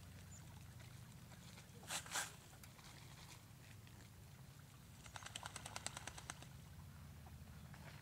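Mallards on a pond: two short water splashes about two seconds in, then a quick run of ticking that lasts about a second, over a low steady rumble.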